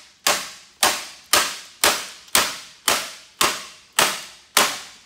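Hand hammer pounding on a second-generation Dodge steering column, nine steady blows about two a second, each ringing briefly before the next.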